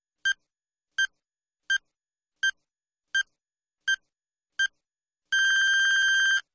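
Countdown timer beeping: seven short electronic beeps of one pitch, evenly spaced about 0.7 seconds apart, then a single longer beep of the same pitch lasting about a second near the end.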